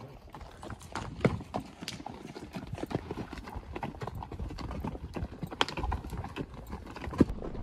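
Horses' hooves clopping as they walk down a rocky dirt trail: an irregular string of sharp knocks on stone and gravel.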